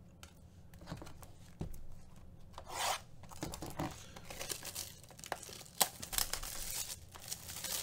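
Plastic wrap being torn and rubbed off a cardboard trading card box: a series of short scratchy rips and rustles with a sharp click just before six seconds in.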